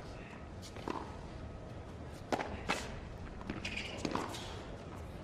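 Tennis rally on a hard court: a series of sharp pops as the players' rackets strike the ball and the ball bounces, spaced irregularly about a second apart.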